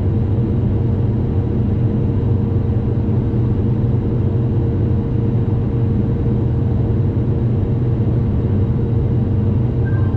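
Case IH 7088 combine running steadily with a deep, even engine drone. A steady hum rides over it and stops just before the end.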